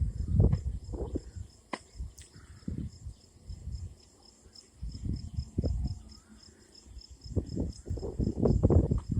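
Crickets chirping in a steady high pulse, about four times a second, under irregular low rumbles that come and go and are loudest near the start and again toward the end.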